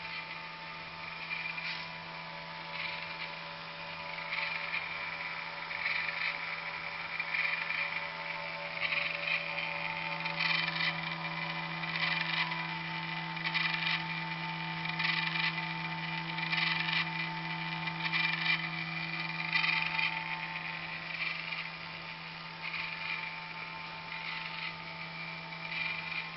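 Stepper motors of a CNC plasma table driving the axes through a simulated cut: a steady pitched whine, with higher-pitched bursts every second or so as the moves change.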